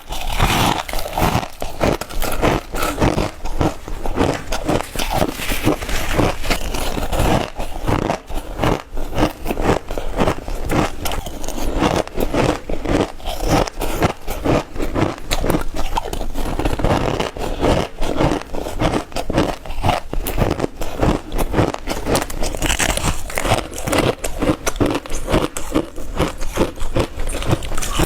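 Crushed ice being bitten and crunched close to the microphone: a dense, unbroken run of sharp, crackly crunches.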